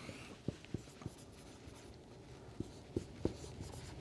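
Dry-erase marker writing on a whiteboard: a string of short taps and strokes as letters are written.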